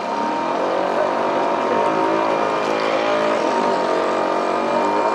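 Motor of a radio-controlled model boat running under way, its pitch drifting up and down with the throttle, over the rush of water along the hull.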